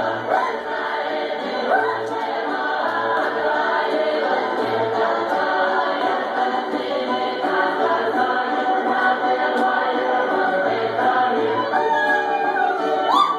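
A choir singing a Russian folk round-dance (khorovod) song, several voices together with little or no instrumental backing.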